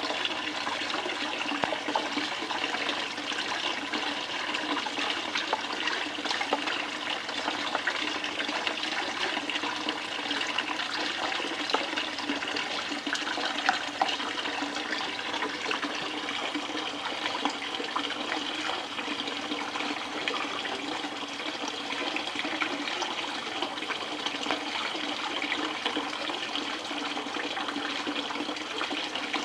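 Water running steadily down a home-built Miller table, a flat water table for settling fine gold out of sluice concentrates, as the first scoop of concentrates is fed through.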